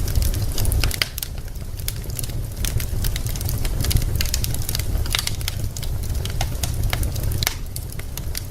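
Wood fire in a fireplace, logs crackling with many irregular sharp pops over a steady low rumble.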